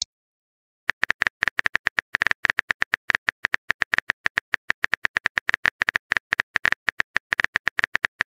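Simulated phone-keyboard typing clicks from a texting app: a rapid run of short, sharp taps, several a second, starting about a second in.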